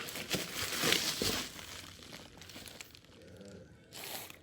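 Packaging of a headphone box crinkling and rustling as it is pulled open, busiest in the first two seconds, then fading to faint rustles with one brief burst near the end.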